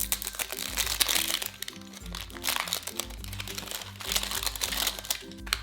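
Crinkling and crunching of a toy's plastic packaging being handled and torn open, with light background music playing.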